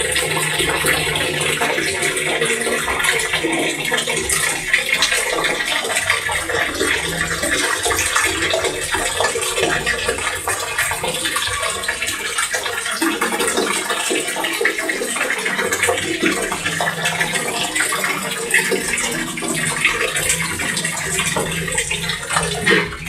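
Water running and splashing while baby clothes are hand-washed in a basin. It goes on steadily, with a low hum underneath that comes and goes, and cuts off suddenly near the end.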